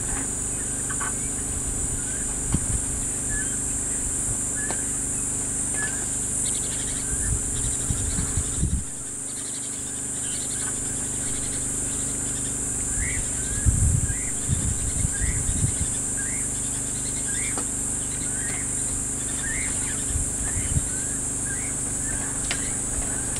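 Bush ambience: insects shrilling steadily, with a bird giving short rising chirps about once a second through the second half, over a low steady hum and a few low thumps.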